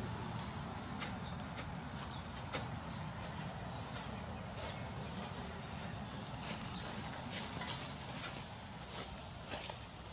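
Steel spade blade chopping and scraping into dry, stony soil among dead leaves, with a few short sharp strikes scattered through. Under it runs a steady high-pitched drone of insects.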